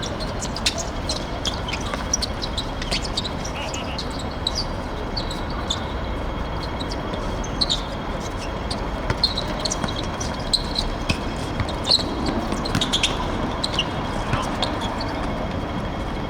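Steady background noise on the microphone from a seven-a-side football game, with scattered short clicks and knocks from play.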